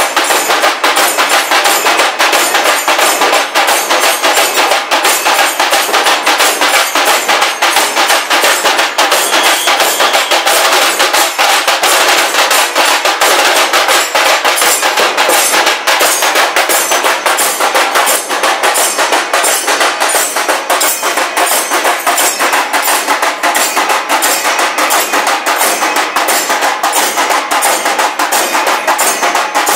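Procession drum band loudly beating bass and side drums in a fast, unbroken rhythm of dense, closely packed strokes.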